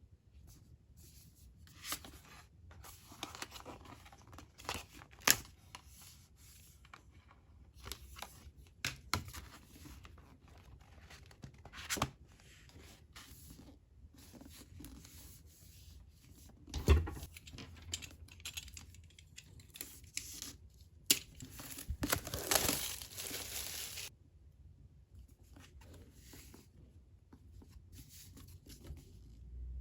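Packaging being torn open and handled by hand: tearing and crinkling with scattered sharp knocks. The longest and loudest tearing lasts about two seconds, roughly three quarters of the way through.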